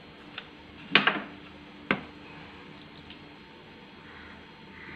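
Kitchen items being handled on a stone counter: a sharp knock about a second in, as of a plastic measuring cup or bottle set down, and a second click near two seconds, then only a faint hiss.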